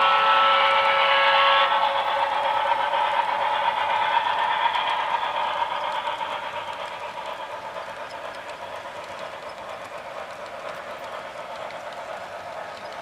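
A multi-tone steam whistle sound cuts off about two seconds in. Then comes the rolling noise of a model freight train's metal and wood cars running on the rails, fading steadily as the train moves away.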